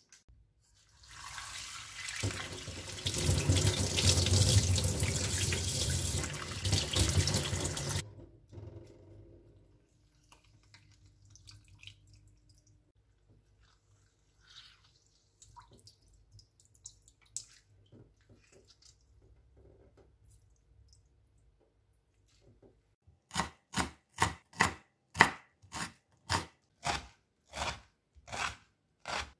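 Tap water runs into a stainless-steel kitchen sink for several seconds, then hands are washed with small, quieter splashes. Near the end a kitchen knife chops crunchy vegetables on a wooden cutting board, about two to three strokes a second.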